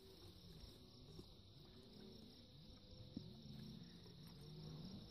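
Faint, steady, high-pitched trilling of an insect chorus.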